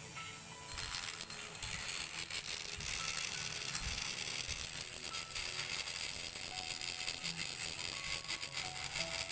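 Die grinder with a small burr porting the aluminium valve port of a Yamaha Jupiter Z cylinder head: a high steady whine with rough chattering as the bit cuts metal. It starts up about a second in, after a quieter moment.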